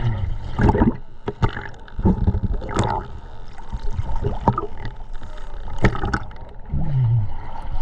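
Water sloshing and gurgling with irregular knocks and splashes, and a brief low falling sound near the end.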